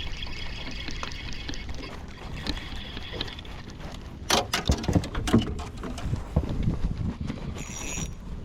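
Wind and water moving around a small boat, with a quick cluster of knocks and taps about halfway through.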